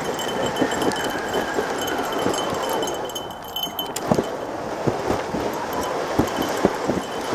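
Rigid plastic ahkio sled being towed over snow: a steady scraping hiss with irregular knocks as it bumps along, and a light metallic jingling.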